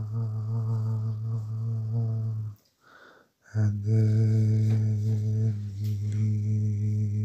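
A man humming a long, low, steady tone, breaking off briefly for breath about three seconds in, then resuming the same note.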